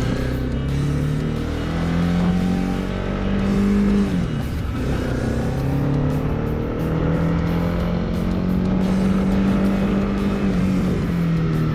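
Honda CB300R's single-cylinder engine pulling away and accelerating. Its pitch rises, drops at a gear change about four seconds in, rises again and holds steady, then falls as it eases off near the end, over a steady rush of wind and road noise.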